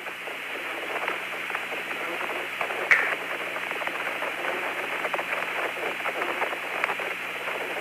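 Open channel of the Apollo 16 air-to-ground radio link between transmissions: a steady hiss of static with many small crackles, one sharper click about three seconds in, and a low hum underneath.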